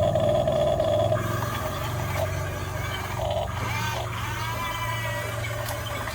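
Huina 1550 RC excavator's electric motors whining in short runs that stop and start, the pitch sliding up and down as they change speed, over a steady low hum.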